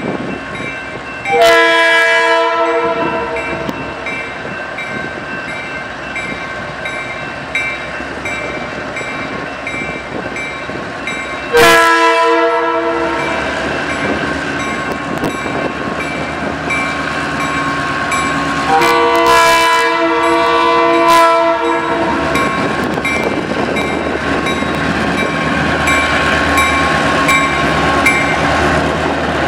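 Adrian & Blissfield Railroad EMD GP9R diesel locomotives approaching a grade crossing, sounding a multi-tone air horn three times, the last blast broken into parts, the crossing warning signal. A crossing bell rings steadily throughout, and the engine rumble grows louder near the end as the locomotives draw close.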